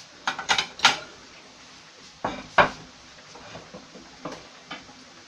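Kitchenware clattering as a ceramic plate and a lidded metal casserole are set down on a wooden cutting board. There is a quick run of knocks in the first second, then two louder clunks about two and a half seconds in, and a few lighter taps later.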